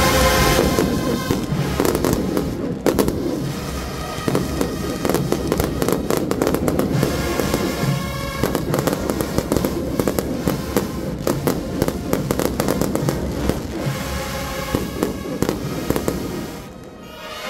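Firecrackers going off in a fast, crackling string of sharp bangs over a band playing, with a brief lull near the end.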